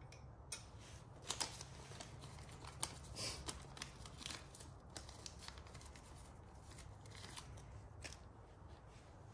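Faint, scattered clicks and light scraping of small metal parts being handled, as the Allen screws of a motorcycle sidestand base extension are started by hand.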